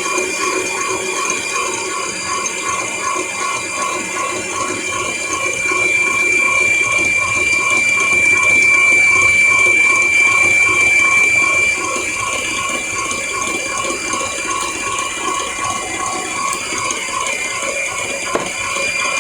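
Electric mixer running steadily at low speed, creaming butter and sugar, with a motor whine and a regular churning pulse from the beaters turning through the mix. It runs louder for several seconds in the middle, then settles back.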